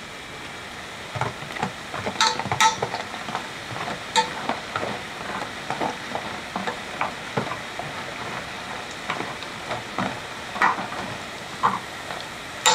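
Thin potato sticks deep-frying in hot oil: a steady sizzle of bubbling oil. From about two seconds in come scattered crackles and sharp clicks as chopsticks stir the sticks in the pan.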